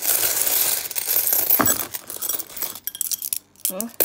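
A heap of British coins clinking and jingling as a hand digs through them. The clinking is dense for about two seconds, then thins to a few scattered clinks.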